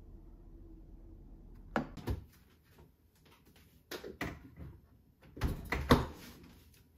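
Kitchen refrigerator door being opened and shut, with knocks and clatter as dishes are taken out. The loudest thump comes near the end as the door closes.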